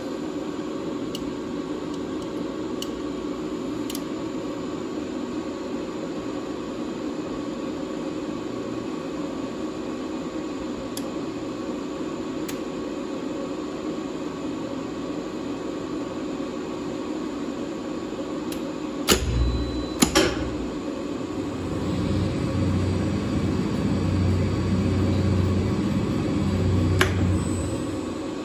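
Steady electrical hum of a lift controller cabinet with faint relay ticks. About two-thirds through, two loud contactor clunks about a second apart, then the lift motor starts and runs with a low hum as the car travels up, with another click near the end.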